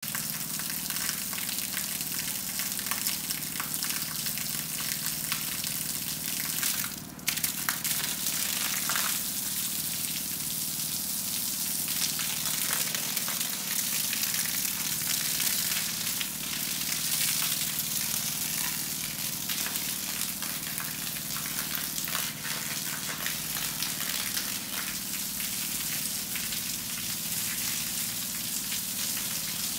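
Water from a hose pouring and splashing onto the wet concrete floor of a crocodile pen, a steady hiss with a brief break about seven seconds in.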